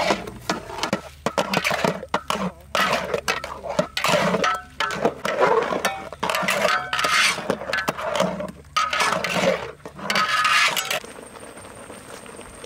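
Dishes and utensils clinking and knocking in irregular bursts, some strikes briefly ringing. About eleven seconds in the clatter stops and only a low steady background remains.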